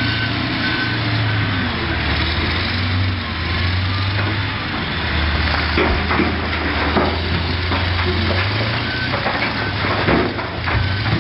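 Heavy diesel machine engine running with a steady low drone. A reversing alarm beeps at the very start and again near the end. Sharp clanks and knocks come through the second half.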